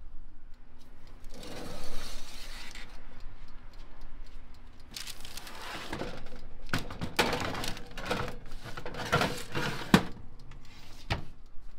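Metal baking tray slid onto the wire rack of a countertop electric oven: several seconds of irregular metal scraping and rattling, then a single sharp click near the end. A soft rustle comes first, about a second and a half in.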